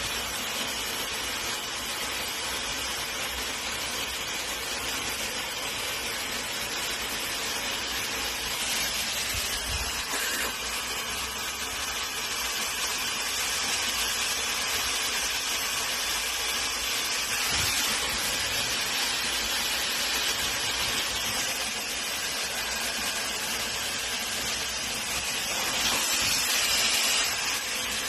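Daynova hair dryer blowing, a steady rushing hiss of air that grows a little louder in the middle and again near the end.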